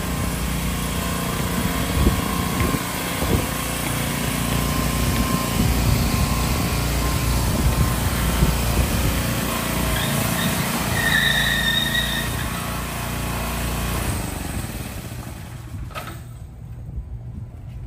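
An engine running steadily with a low rumble, with a brief high tone about eleven seconds in; the engine sound fades and drops away about two seconds before the end.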